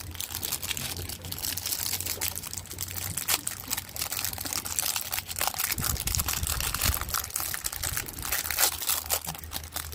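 Cellophane wrapper of a baseball card pack crinkling as it is torn open and handled, with a dense run of irregular crackles. Wind rumbles on the microphone underneath.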